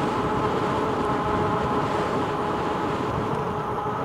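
Rad Power Bikes RadRover 5 e-bike's geared rear hub motor running under throttle, a steady whine that holds one pitch, over a low rush of wind and road noise.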